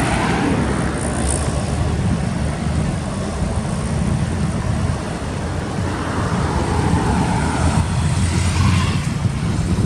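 Truck running: a steady low engine and road rumble.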